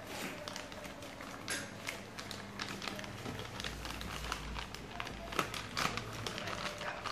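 Thin plastic courier mailer bag being handled and opened: a continuous crinkling and rustling of plastic with many small crackles and taps.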